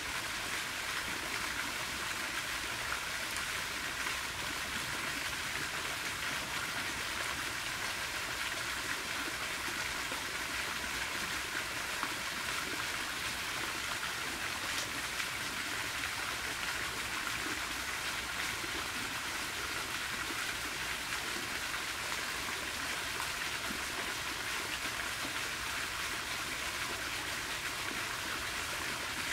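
Garden fountain jets spraying and splashing into a pond: a steady, even rush of falling water.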